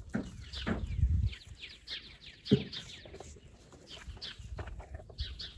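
Birds chirping: a steady stream of short, high, downward-sliding chirps, with a few low thumps about one second and two and a half seconds in.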